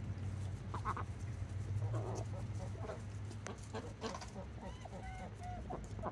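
Domestic ducks giving soft, short chattering calls and quacks while they drink, with a run of brief clipped notes a little past the middle. A steady low hum runs underneath.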